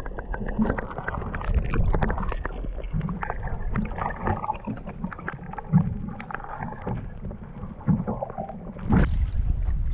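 Underwater sound picked up by a submerged GoPro: a muffled low rumble full of small clicks, crackles and gurgles. A louder, brighter rush of water comes about nine seconds in.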